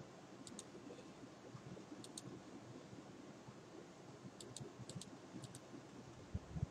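Computer mouse button clicks, short and sharp, coming in quick pairs a second or two apart, over faint steady hiss. A couple of dull low thumps near the end.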